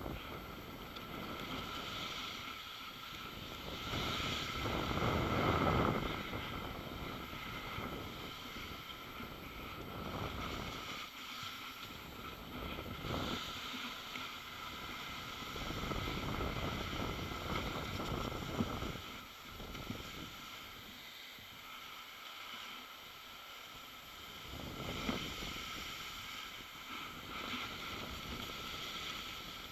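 Wind buffeting the camera microphone, rising and falling in gusts every few seconds, over a faint steady high tone.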